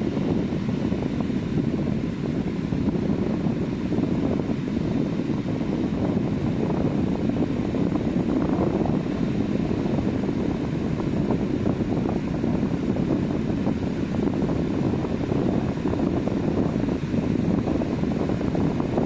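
Sea surf on a beach mixed with wind rumbling on the microphone: a steady, even rushing noise with no distinct wave crashes standing out.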